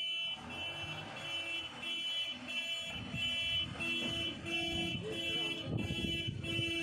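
Backhoe loader's reversing alarm beeping steadily about twice a second, with the diesel engine running underneath and growing louder about halfway through.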